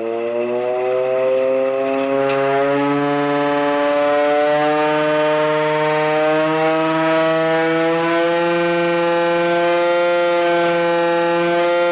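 Wartime Carter air raid siren (Carter & Co., Nelson, England) sounding its wail: the tone rises in pitch over the first three or four seconds as it winds up, then holds a steady, loud pitch.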